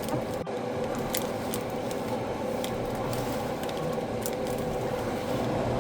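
A few faint clicks and light handling noises of kitchen packaging over a steady hiss.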